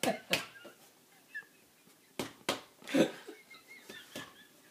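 Hands working soda bread dough: a handful of sharp, unevenly spaced slaps and knocks, with soft handling noise between them.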